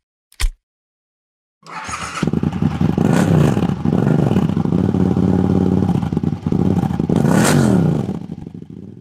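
A sharp knock just after the start, then from about one and a half seconds an engine running and revving up and down, with hissing swells about three and seven and a half seconds in, dying away near the end.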